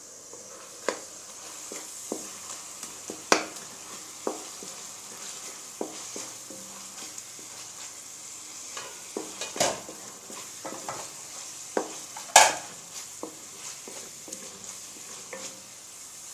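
Minced beef frying with a steady sizzle in a metal pan as a wooden spoon stirs it, with scattered knocks and scrapes of the spoon against the pan. The two loudest knocks come a little past the middle and about three quarters of the way through.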